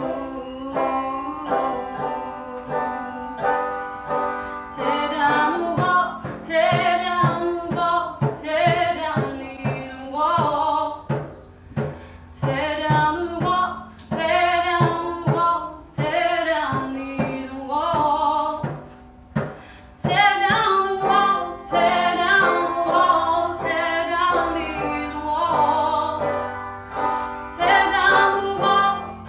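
A woman singing a folk song, accompanying herself on a banjo with steadily plucked notes under the melody.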